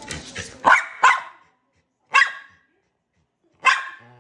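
Small fluffy dog barking to be let outside: four short, sharp barks, the first two in quick succession about a second in, then two single barks spaced about a second and a half apart.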